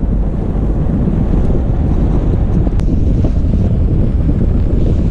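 Steady low rumble of a Toyota FJ Cruiser driving on a snowy dirt road: tyre, drivetrain and engine noise with some wind buffeting the microphone.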